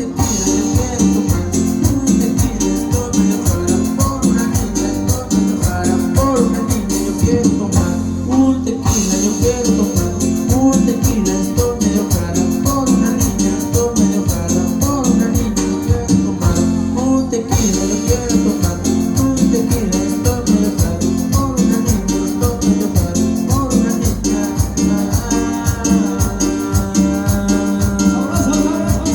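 Cumbia music with a steady dance beat and shaker-like percussion.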